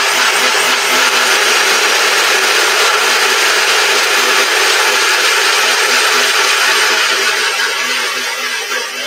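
Electric countertop blender running at speed, chopping apple, ginger, lemon and cloves with no liquid added. The steady loud whir eases off slightly near the end.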